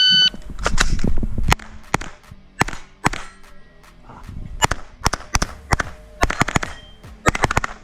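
Shot timer start beep, then a pistol-caliber carbine fired rapidly, mostly in quick pairs of shots. There are about a dozen shots or more over the following seven seconds, with a fast string near the end.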